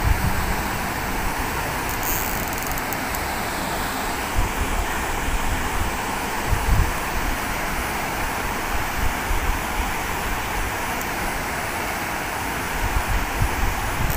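Steady hum of distant road traffic, with wind buffeting the microphone a few times.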